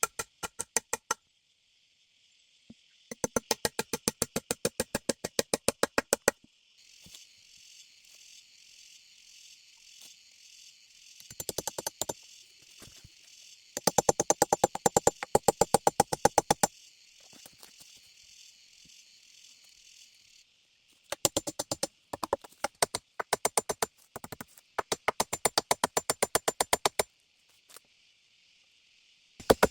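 Insects buzzing steadily, high-pitched, broken by loud bursts of rapid, very regular clicking, about ten clicks a second, each burst lasting a second or three.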